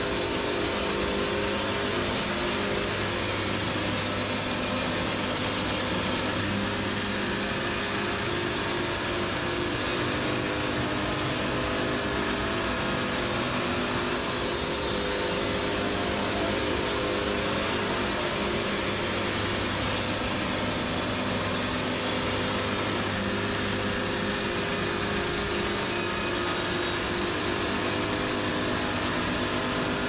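Wood-Mizer LT70 bandsaw sawmill running, a steady machine drone with a constant low hum under a broad hiss.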